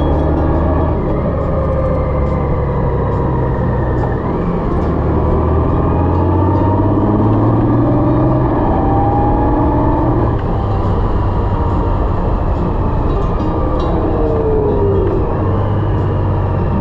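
Honda Gold Wing's flat-six engine running under way, with wind and road noise. The engine note climbs steadily, then drops about ten seconds in.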